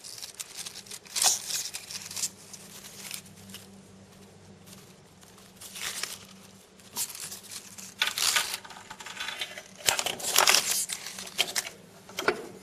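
Thin plastic bag crinkling and rustling as it is handled, in irregular bursts that grow louder in the second half.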